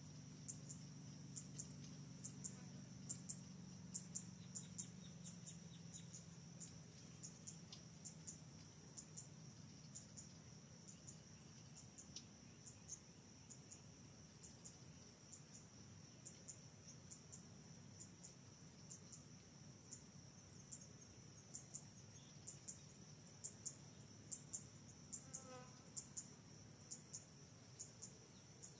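Faint, steady high-pitched trilling of insects, with rapid ticks scattered through it. About 25 seconds in, a brief run of chirps falls in pitch.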